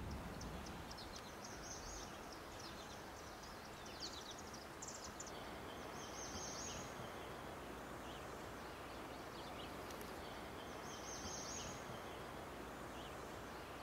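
Quiet outdoor ambience: a steady low hiss with faint bird chirps, and two short, high, buzzy trills about six and eleven seconds in.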